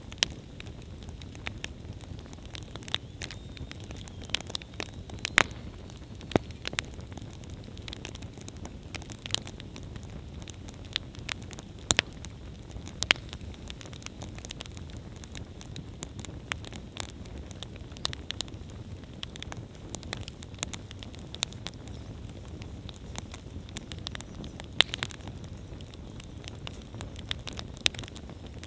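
Wood campfire burning: a steady low rumble of the flames with frequent sharp, irregular crackles and pops from the burning wood.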